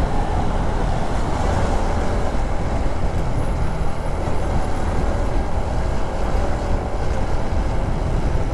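A motorcycle cruising at road speed: steady wind rush on the microphone and road rumble, with the engine droning underneath.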